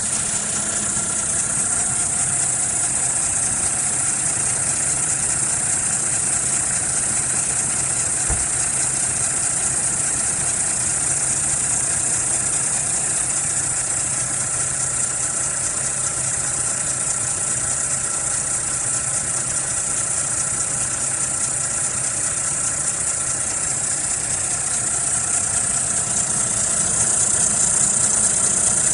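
Toyota Fortuner VNT turbodiesel engine idling steadily, with a constant high-pitched whine and hiss over the engine hum, which the owner takes for an abnormal noise from the V-belt.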